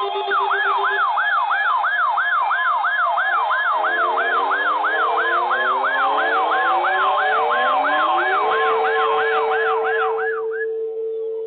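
A siren yelping, sweeping up and down quickly about two and a half times a second over steady background tones. From about four seconds in, lower tones glide upward and settle into one held steady tone. Everything cuts off sharply just before the end.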